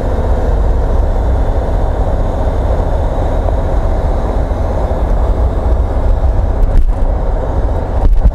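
Steady cabin noise of a single-engine piston airplane on final approach: a low engine and propeller drone under the rush of air, the engine throttled back to about 20% power.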